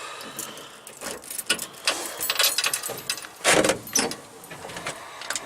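A run of small clicks, clinks and rattles from handling, with one louder thump about three and a half seconds in. The engine is not running yet.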